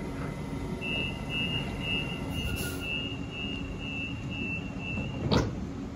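Door-closing warning beeps of a Sydney Trains Waratah (A set) double-deck train: a rapid steady beeping at one high pitch, about four beeps a second, over the low hum of the train. The beeping stops about five seconds in and is followed at once by a short, loud burst of noise.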